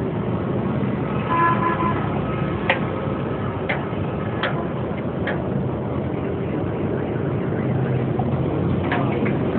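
Steady din of busy street traffic, with a vehicle horn sounding briefly about a second in. A few sharp taps or clicks come roughly a second apart in the middle and again near the end.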